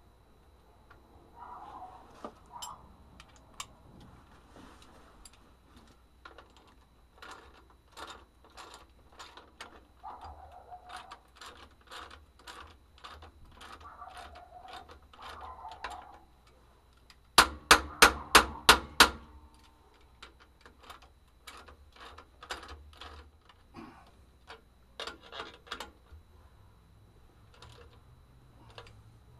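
Socket ratchet clicking in short runs as the clamp bolts on a truck's air spring brake chamber are run down, with a loud quick run of about seven sharp metal strikes about 17 seconds in.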